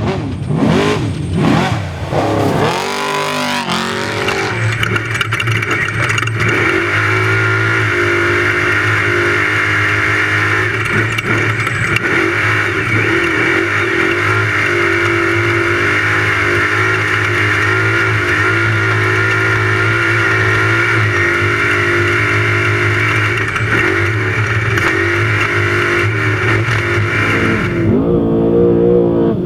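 Off-road race truck's engine revving with rising and falling pitch for the first few seconds, then running hard at a near-steady pitch for about twenty seconds before easing off near the end.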